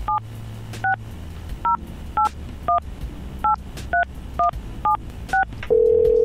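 Touch-tone telephone dialing a number: ten short two-tone DTMF beeps, about two a second, then near the end a steady ringback tone as the call starts to ring through.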